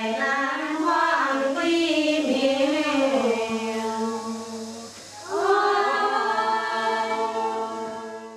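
Unaccompanied choir singing, several voices moving in melody over a steady held low drone note. The voices ease off about four seconds in and come back strongly about a second later.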